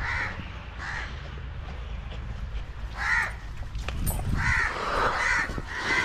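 Crows cawing in short harsh calls: one at the start, another about a second in, one near the middle, then several in quick succession toward the end.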